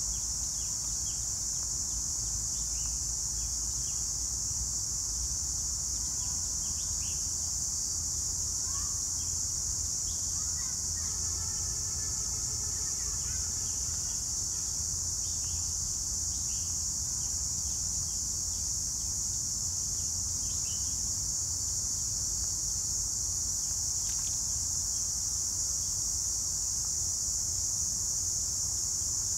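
Steady high-pitched insect chorus shrilling without a break, with scattered short bird chirps over it and a low rumble underneath.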